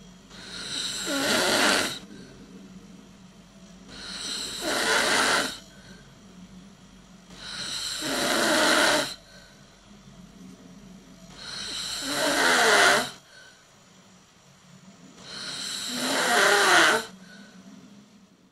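A person snoring: five snores about every four seconds, each swelling louder and then cutting off sharply.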